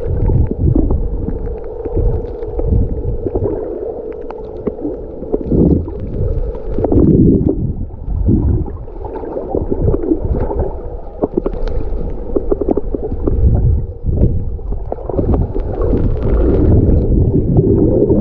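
Water gurgling and sloshing close around the microphone in uneven surges, with a steady hum for the first several seconds.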